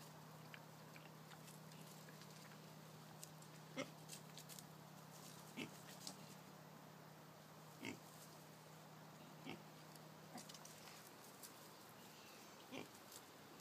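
Piglets grunting faintly: several short single grunts, a couple of seconds apart.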